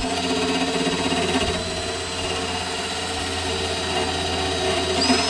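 A small motor running steadily with a hum, like a power tool; its lower tone changes about one and a half seconds in, and a thin high whine joins near the end.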